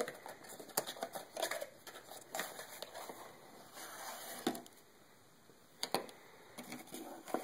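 Cardboard product box being handled and opened by hand: scattered taps, clicks and brief scrapes and rustles of the card, with a quiet pause about five seconds in.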